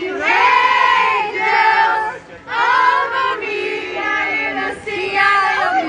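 A close group of fans singing loudly together in high voices, holding and sliding notes, with a short break about two seconds in.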